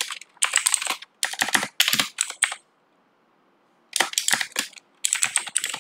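Typing on a computer keyboard: quick runs of keystrokes, with a pause of about a second partway through.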